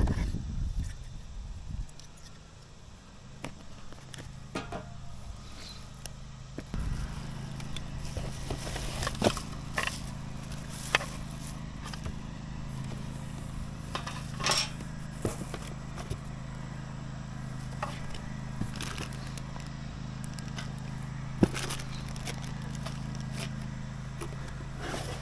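Cardboard box flaps and plastic packaging being handled as parts are unpacked: scattered crackles, scrapes and small knocks. A steady low hum sets in about seven seconds in.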